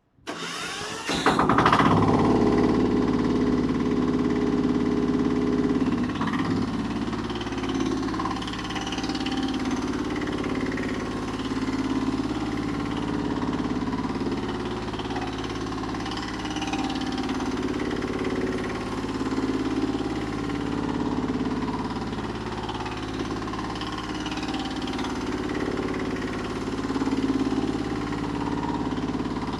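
Mini backhoe's 12 hp diesel engine starting about a second in, then running steadily with slight swells in level.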